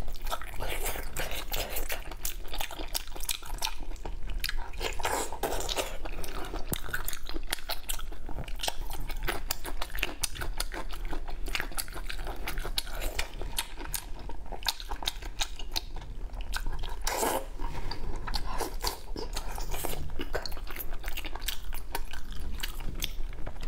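Close-miked chewing and biting of chewy beef tendon coated in chili oil: a continuous run of quick mouth clicks.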